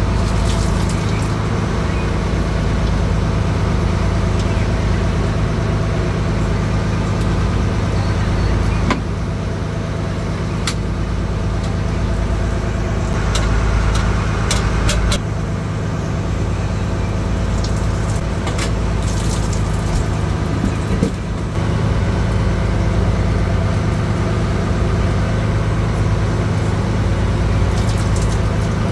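Fishing boat's engine running steadily, with a few sharp clicks and knocks scattered through it.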